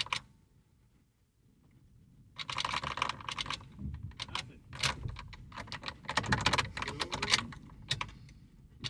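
Ignition key being turned and jiggled over and over in a Jeep's steering-column lock, giving rapid clicking and keyring rattling in runs after a short quiet spell. The engine doesn't crank because the battery is dead.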